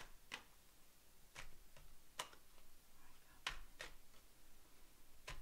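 Several faint, sharp clicks and taps at uneven intervals, with no speech between them.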